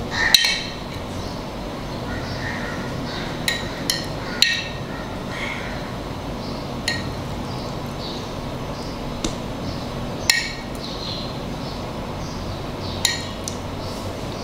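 A metal utensil clinking against a glass dish about eight times at irregular intervals, each a short ringing tick, the loudest near the start, over a steady background hiss.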